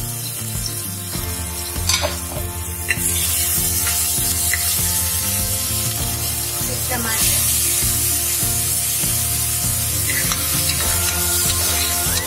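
Hot oil sizzling in an aluminium pressure cooker as a tempering of mustard seeds, spices and ginger-garlic paste fries and is stirred, with a couple of sharp pops about two seconds in. The sizzle gets louder about three seconds in.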